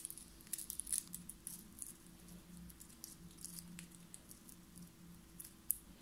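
Cockatiels nibbling and tugging at a strip of paper with their beaks: quick, irregular crinkling and tearing ticks, busiest in the first couple of seconds, with one sharper click near the end.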